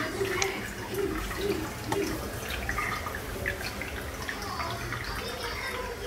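Water dripping and splashing irregularly, in a small tiled room.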